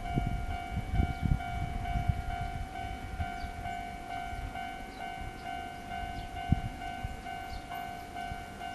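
Japanese level-crossing warning bell ringing steadily at about two strokes a second, over the rumble and wheel knocks of an Enoden (Enoshima Electric Railway) train passing over the crossing. The train fades as it moves away, with one more knock near the end.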